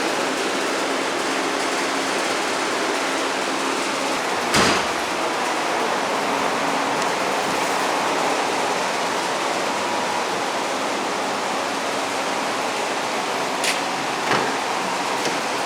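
Steady rushing noise, fairly loud, with one sharp knock about four and a half seconds in and two lighter clicks near the end.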